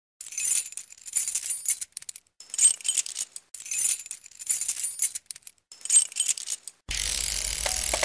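Title-intro sound effect: high, glittering jingling like shaken glass or small bells, swelling in about five waves. About a second before the end it gives way to a steady, fuller sound.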